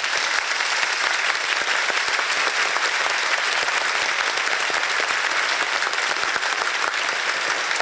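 Theatre audience applauding, with the cast on stage clapping along: dense, steady clapping that starts at once and holds evenly throughout.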